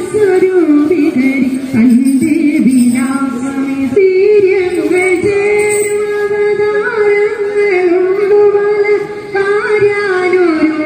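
Background music: a song with a single voice singing long, held notes that glide between pitches over instrumental backing.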